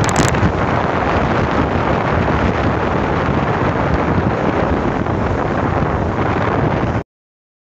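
Wind rushing over the microphone of a handlebar-mounted camera on a moving Honda motorcycle, mixed with engine and road noise. The sound is loud and steady, then cuts off abruptly about seven seconds in.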